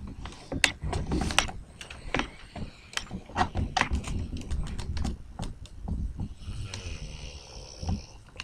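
A man snoring in his sleep, low rumbling breaths, overlaid by many irregular sharp clicks and knocks, with a hissy breath near the end.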